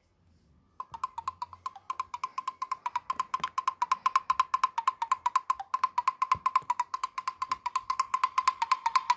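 Nokia Lumia 520 ringtone starting just under a second in: a rapid, even run of short wood-block-like notes on one high pitch, growing louder over the first few seconds.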